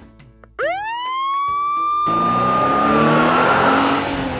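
Police siren sound effect: one tone swooping up about half a second in and then holding, joined about two seconds in by a louder rush of a car speeding off, its engine note falling in pitch.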